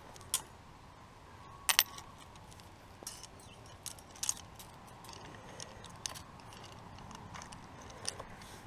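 Irregular metallic clicks and clinks from a chain wire strainer being worked to tension high-tensile fence wire. The sharpest is a double click a little under two seconds in.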